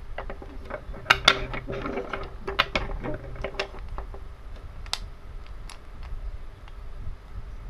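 Wooden toy train engines handled in the hands and knocking against each other: a quick flurry of clicks and light knocks through the first half, then a few scattered single clicks.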